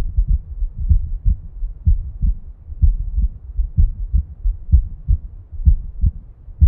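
Recorded human heartbeat: paired low thuds, the lub-dub of the first and second heart sounds as the heart valves close, repeating about once a second.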